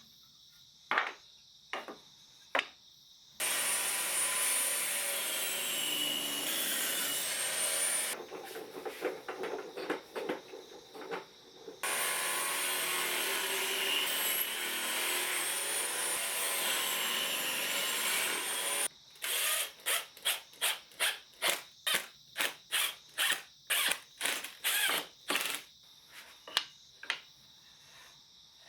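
Woodworking: a small power tool, drill-like, runs twice for several seconds with a wavering whine. Then wood is worked by hand with quick, even back-and-forth strokes, about two a second, like hand sawing or sanding. Scattered clicks and knocks from handling come in between.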